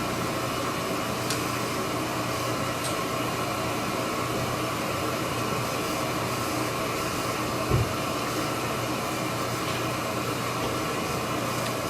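Steady room hum and hiss, with a soft low thump about eight seconds in.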